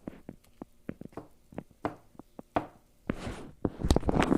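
A spoon knocking and tapping against a bowl of thick microwave brigadeiro, about a dozen light irregular taps, with a short scrape about three seconds in.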